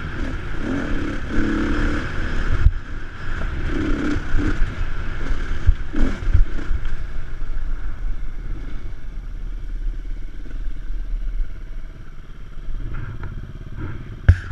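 Dirt bike engine revving in bursts on a rough uphill trail, with sharp knocks and clatter from the bike over the ground. About halfway through it settles to quieter, lower running.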